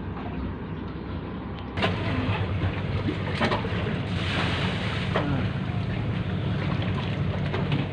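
Steady low hum of a boat engine running. About two seconds in it gets louder, with open-air wind noise and a few light knocks.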